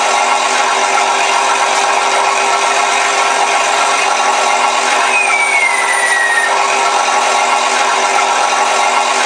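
Recorded P-51 Mustang engine sound played by a ShockWave sound module through two speakers in an electric RC P-51 Mustang, running steadily. A thin whistle falls in pitch about five seconds in.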